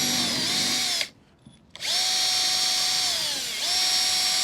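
Power drill running in two bursts with a steady motor whine. The first stops about a second in and the second starts shortly after. In the second burst the pitch sags as the motor is loaded, then picks back up.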